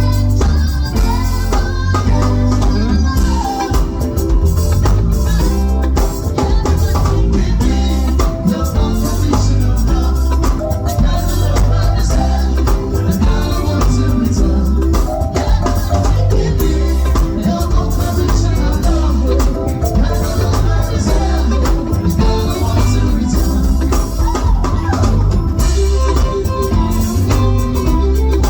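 Band music with a steady drum beat and heavy bass, with a voice singing over it.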